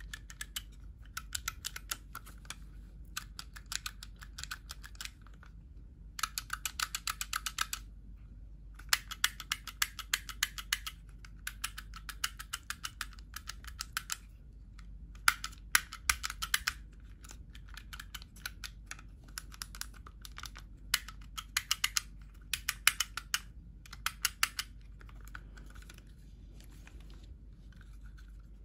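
Plastic rocker toggles of a classic Mercedes-Benz power seat switch being flicked back and forth, clicking rapidly in bursts of a second or two with short pauses between. The switch has been freshly cleaned and greased so the toggles move and spring back freely rather than sticking.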